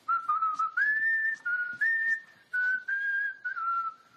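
A person whistling a tune: clear held notes stepping up and down between a few pitches, in short phrases with brief breaks between them.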